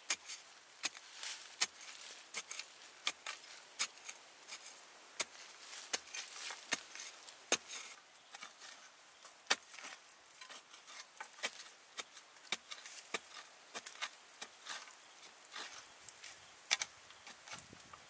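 A flat metal digging blade striking and scraping into soil, digging a hole to unearth wild potatoes: sharp, irregular chops and scrapes, about one or two a second, with loose dirt crumbling.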